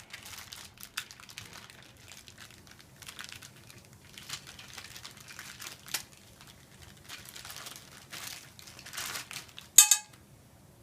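Packaging crinkling and rustling in irregular bursts as a scooter's nylon brake is unwrapped by hand, with one sharp click near the end.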